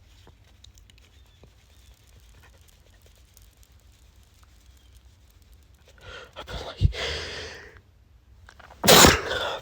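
A man's pollen-allergy sneezing. After a few quiet seconds there is a first, smaller noisy burst of breath, and about two seconds later a loud, sudden sneeze.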